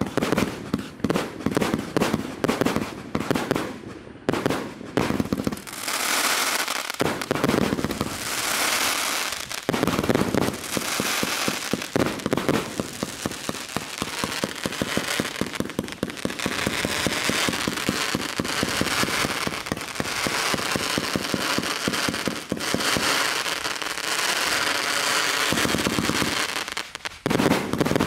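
NICO 'Jeeton Star' 300-shot, 30 mm fireworks compound cake firing. It starts with a quick run of separate launches and bursts, several a second. From about six seconds in it becomes a dense, nearly continuous rapid-fire barrage of launches and bursts.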